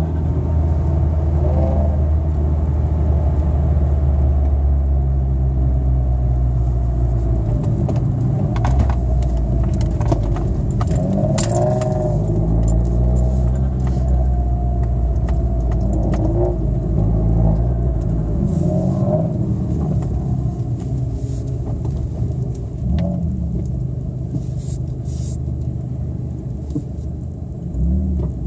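Car engine heard from inside the cabin, running with a steady low hum while driving slowly, with light jingling and rattling now and then, heaviest about ten seconds in.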